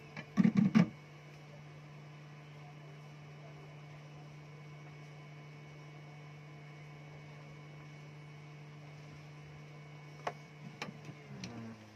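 Steady electrical hum on a workbench, with a cluster of sharp clicks about half a second in and a few more near the end. The hum drops lower in pitch near the end.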